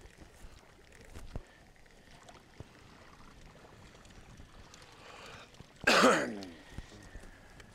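A person clears their throat once, harshly and loudly, about six seconds in.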